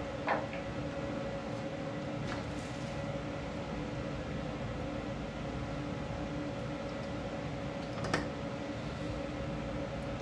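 Steady low hum of workshop background noise, with a light click just after the start and another about eight seconds in.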